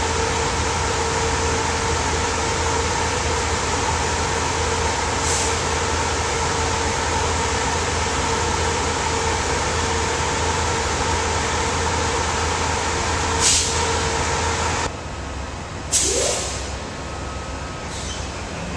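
Steady hum and hiss of idling passenger-train equipment, a steady whine over a low drone, with a short hiss about thirteen seconds in. About fifteen seconds in it gives way to a quieter hum, broken by a sharp clack and a brief squeal.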